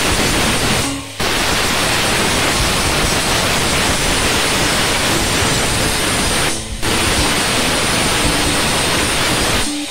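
Electric angle grinder grinding along the edge of a galvanized steel sheet panel, a steady harsh hiss. It breaks off briefly twice.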